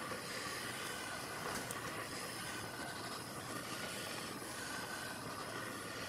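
Small pencil-tip torch flame hissing steadily as it heats a steel crankshaft timing gear so that the gear will expand to slip onto the crank.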